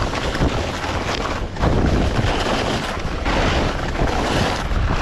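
Wind buffeting the microphone: a loud, gusty rush with heavy low rumble, swelling about one and a half seconds in.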